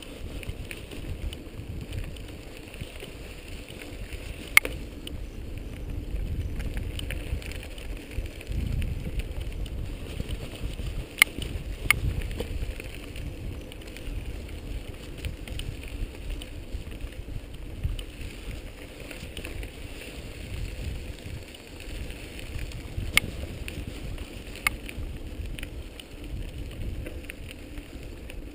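A bicycle ridden along a dirt trail: a steady low rumble of tyres and wind on the camera's microphone. A few sharp clacks sound as the bike jolts over bumps.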